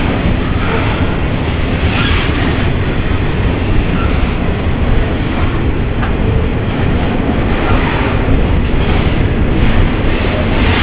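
Container freight train rolling past at close range: a loud, steady rumble of wagons and wheels on the rails.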